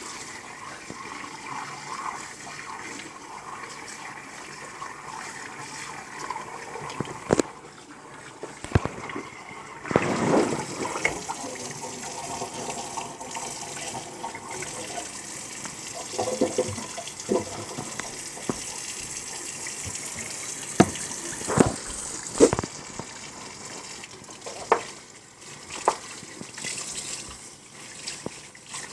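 Kitchen tap running onto a raw turkey in the sink, with water splashing as hands rinse the bird. Several sharp knocks cut through the running water, a cluster of them about two-thirds of the way in.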